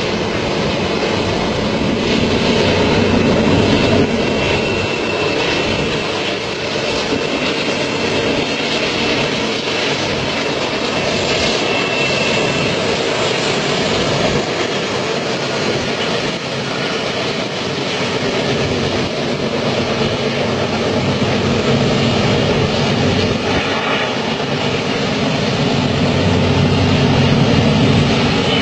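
Steady drone of a freight train's diesel locomotives, several of them coupled together, hauling a long train along a curving mountain track.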